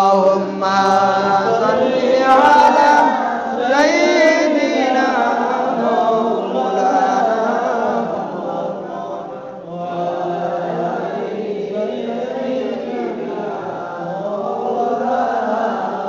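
A man chanting a sung Arabic supplication into a microphone in a drawn-out, melodic voice, with long held notes and sliding pitch.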